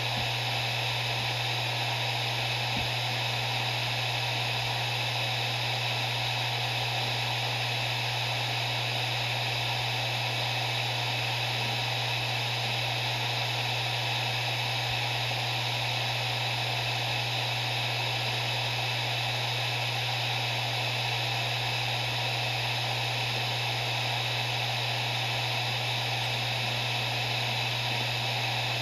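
Maxtor MaXLine Plus II 250GB 7200 RPM hard drive spinning at full speed: a steady low hum with an even hiss over it, and one faint click about three seconds in.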